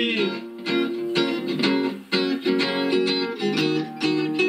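Steady guitar strumming, about two strums a second, in an instrumental break of a song between sung verses.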